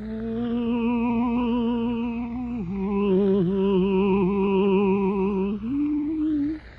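Solo operatic-style singing voice holding long notes with vibrato: one held note, a slightly lower one, then a short higher note before it fades near the end. It is heard on an old radio broadcast recording, with a low hum underneath.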